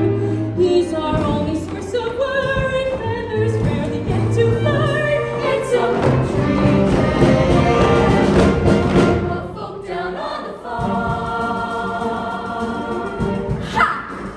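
Stage cast singing together in chorus over instrumental accompaniment, in a musical-theatre ensemble number. The music thins briefly about ten seconds in, then the singing picks up again.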